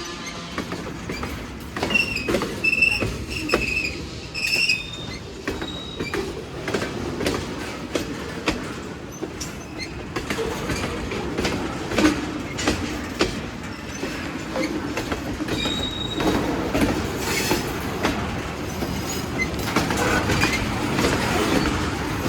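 Cars of a Union Pacific manifest freight train rolling past, with wheels clacking over rail joints in a steady run of clicks and a few short, high-pitched wheel squeals in the first few seconds.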